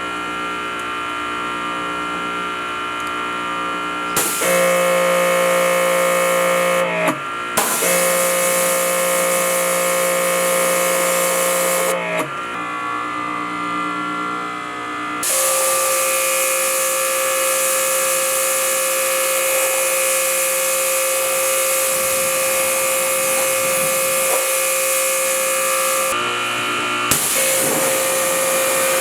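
Electric pressure washer running: a steady motor whine with the hiss of the water spray, which stops and starts several times as the trigger is released and squeezed again.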